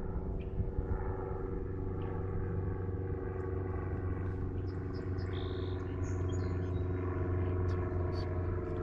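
A steady low mechanical hum, like an engine running, holding an even pitch throughout. A few brief high chirps come in about halfway through.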